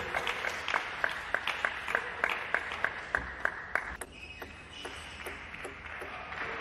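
Table tennis rally: a plastic ball struck back and forth, bat and table, in quick sharp ticks about four a second. The rally stops about four seconds in, leaving a low hiss with a few scattered taps.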